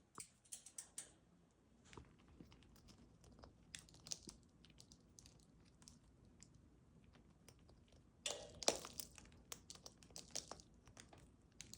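Patagonian conure cracking and chewing a nut in its beak: irregular sharp crunches and clicks, with a louder flurry about eight seconds in.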